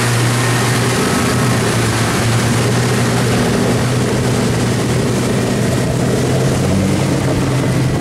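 Motorboat engine running steadily at speed while towing a rider, over the rush of the boat's wake.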